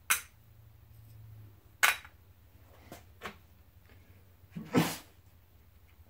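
A handful of short, sharp clanks and clicks from metal engine parts and tools being handled by hand, the loudest at the start, about two seconds in and near five seconds in.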